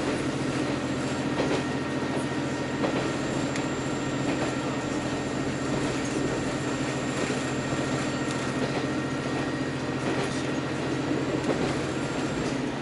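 Diesel railcar running at speed, heard from inside the carriage: a steady engine drone over the even rumble of wheels on rail, with a few faint clicks from rail joints.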